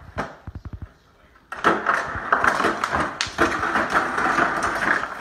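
A dog working a refrigerator's water dispenser with its muzzle and paw: a quick run of licks and taps on the dispenser paddle, then about one and a half seconds in water starts pouring from the dispenser with a steady splashing hiss while the dog laps at the stream.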